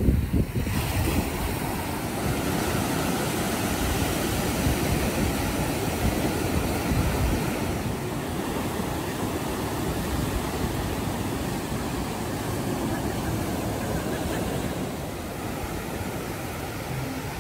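Ocean surf breaking and washing up a sandy beach: a steady rushing hiss of waves.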